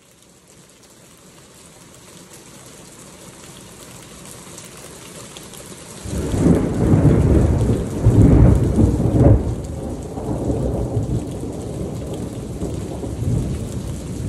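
Heavy rain falling steadily, then thunder breaking about six seconds in. The thunder is a sudden deep rumble, loudest over the next three seconds in two swells, then rolling on more quietly under the rain.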